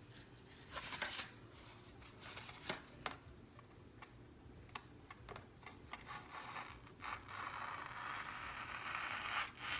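Craft knife blade drawn along a line through foam board, making faint scratchy scraping strokes with small clicks. This is a stage of scoring the board in shallow passes, going deeper with each stroke. A longer, louder scrape comes near the end.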